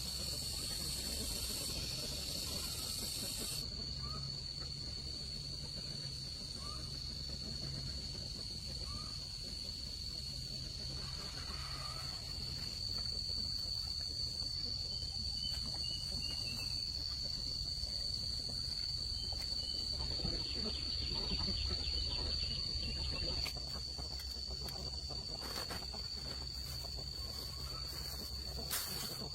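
Insects droning in one steady high-pitched note, with a few faint short bird chirps and some clicks near the end.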